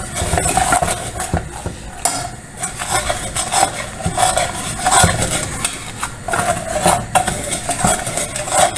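A spoon stirring and scraping sugar in a small pot as it begins to caramelise, with irregular clinks and scrapes against the pot.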